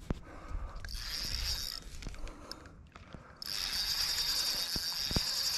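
Spinning reel being cranked, its gears whirring while a hooked fish is reeled in. There is a short stretch about a second in, then steady cranking from about three and a half seconds on.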